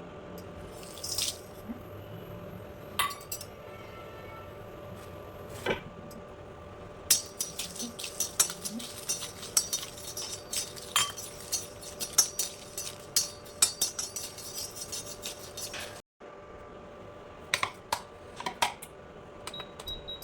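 Whole spices being dry-roasted in a metal pan. A spatula taps and stirs while the spices tick and clink against the metal. The clinking is sparse at first, comes thick and fast in the middle, and breaks off briefly about 16 seconds in.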